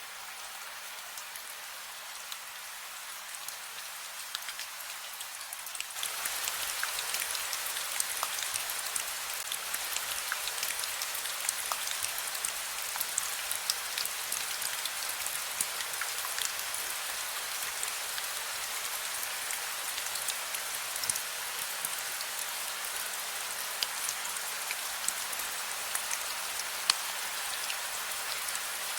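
Steady rain falling, an even hiss with many small drops pattering. It grows louder and fuller about six seconds in.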